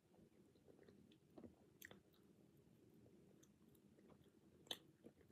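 Faint, quiet chewing of a soft, sticky bread-like snack cake, with a few small mouth clicks; otherwise near silence.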